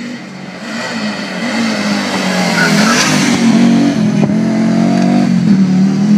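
Audi Quattro rally car's turbocharged five-cylinder engine under hard acceleration on a hill climb, growing loud over the first few seconds as the car comes up and passes close by. Its engine note dips and climbs again twice as it drives through the bend.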